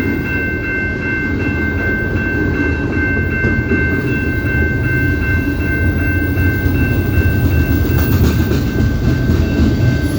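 CP Rail train rolling past with a heavy, steady rumble. A steady high ringing tone sits over it and fades out about eight seconds in.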